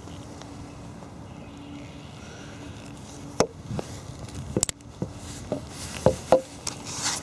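Handling noise of a black powder revolver: a faint steady hum, then from about halfway a series of irregular sharp clicks and knocks as the gun is turned over and handled.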